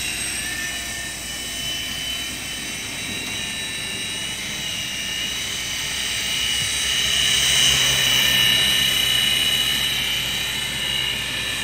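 Auldey SkyRover Navigator toy RC helicopter in flight: its small electric motors and spinning rotors whine steadily in a high pitch, swelling louder around eight seconds in.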